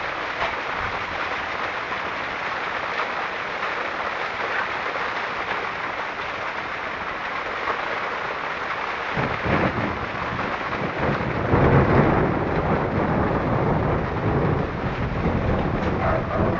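Steady rain falling, with a low rumble of thunder that builds about nine seconds in and is loudest a few seconds later.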